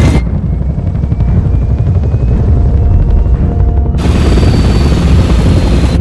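Stealth Black Hawk helicopter's rotors and turbines running, heard from inside the cabin as a loud steady low beat. About four seconds in the sound turns brighter and hissier.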